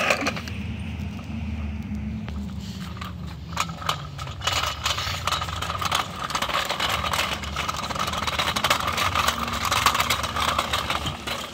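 A garbage truck's engine running with a low rumble that fades over the first few seconds. After that, an irregular rattling and scraping clatter with a faint steady whine takes over.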